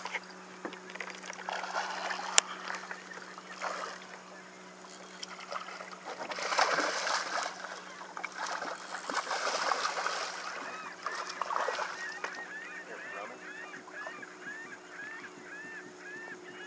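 A hooked fish thrashing and splashing at the water's surface beside the boat, in several noisy bursts through the middle of the clip. Toward the end, a run of short, evenly spaced rising-and-falling squeaks, about two a second.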